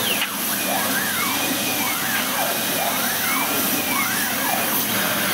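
JQ1630 fabric laser cutting machine at work: the motors driving the laser head give a whine that rises and falls in pitch about every second and a half, four times, as the head speeds up and slows down on each pass. Under it runs a steady loud hiss of air.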